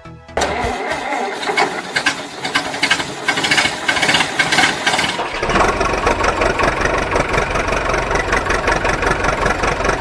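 Diesel engine sound laid over toy vehicles: an engine catches with a loud clatter about half a second in. Around halfway it changes to a deeper, steady knocking run.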